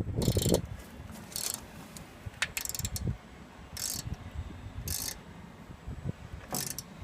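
Hand-wound rivnut setting tool being tightened onto a threaded rivet: short ratcheting bursts, about one every second and a quarter, as the bolt is wound in stroke by stroke to pull the rivet in and set it.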